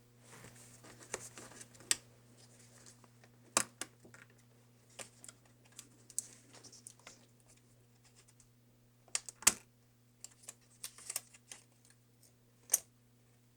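Light, irregular clicks and taps of small parts and tools being handled on an opened MacBook Pro, with brief faint scraping between them. The sharpest clicks come about three and a half, nine and a half and twelve and a half seconds in.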